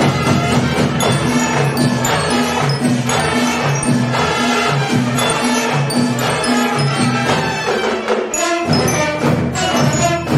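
Marching band playing: brass horns over drums, with a repeating bass figure. The low end drops out briefly about eight seconds in.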